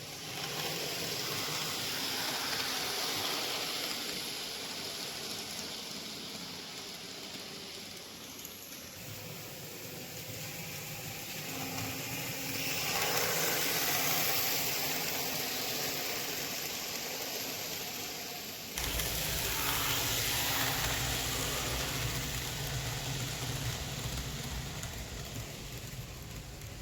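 N-scale model train running on Kato Unitrack: a small locomotive motor and wheels on rail make a steady whirring hiss that grows louder and fades. The sound changes abruptly about 9 and 19 seconds in.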